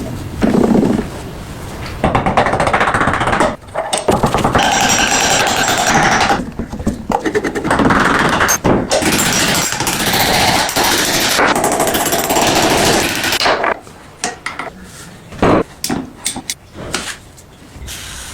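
A power tool working on metal in long noisy runs with short breaks, for about ten seconds. After that come scattered sharp clicks and knocks.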